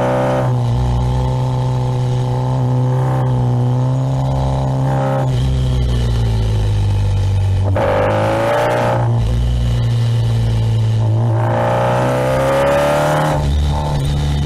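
Kawasaki Ninja 1000SX's inline-four engine running under way, its pitch rising twice as it accelerates: about halfway through and again near the end.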